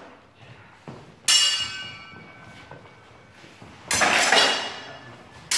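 Steel sword-and-buckler sparring: a sharp metallic strike about a second in that rings and fades over about a second, then a louder noisy burst lasting about half a second around four seconds in as the fencers close.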